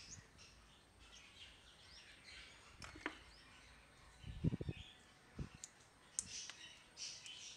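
A few soft knocks and clicks of a plastic pan-tilt servo bracket being picked up and handled, the loudest cluster about four and a half seconds in, over faint bird chirps in the background.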